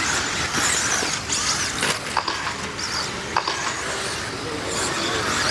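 Radio-controlled off-road racing buggies running on a dirt track, their motors whining in a high pitch that rises and falls, with sharp clicks now and then.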